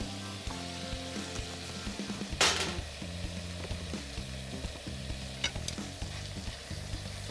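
Liver and garlic chives frying in a pan, a steady sizzle with a brief louder burst about two and a half seconds in.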